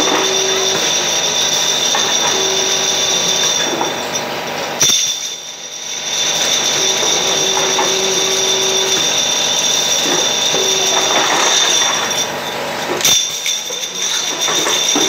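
Automatic four-nozzle jar filling machine running, with a steady high whine, glass jars clinking on the conveyor, and sharp knocks about five seconds in and again about thirteen seconds in as the machine cycles.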